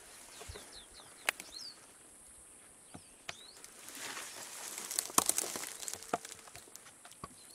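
Dry grass rustling and crackling against a hand-carried camera rig, with a cluster of sharp clicks and knocks about five seconds in. Birds chirp briefly in the background over a steady high hiss.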